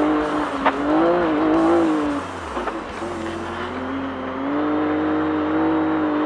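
Off-road race vehicle's engine running under way, its note wavering, sagging about two seconds in, then holding steady and slowly climbing.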